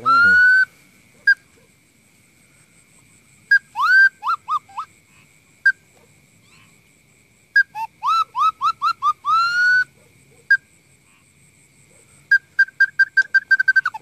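Hand-held bird-call whistle blown as a lure to draw birds into a catching net, imitating bird calls. It plays phrases of quick rising, slurred notes separated by pauses, with single sharp pips between them and a rapid run of repeated pips near the end.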